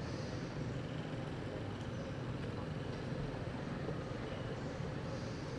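Steady low background rumble with a few faint, short high chirps now and then.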